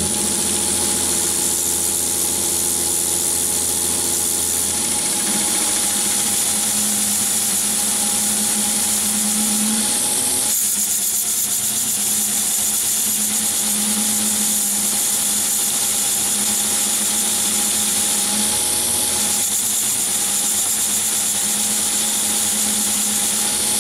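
Lathe running at about 800 rpm with a carbide-insert turning tool cutting a brass component, chips flying. The cut runs over the part's hexagon flats, which is what makes the interrupted cutting noise. The steady machine sound shifts in tone a few times as the cut changes.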